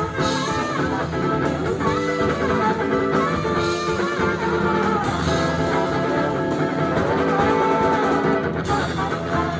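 Live funk band playing an instrumental passage, with electric guitar prominent over bass and drums.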